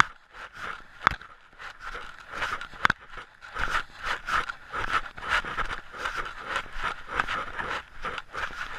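A hiker's footsteps crunching on a dirt-and-gravel trail, about two steps a second, mixed with the scraping and rubbing of the handheld camera. Two sharp knocks come about a second in and near three seconds.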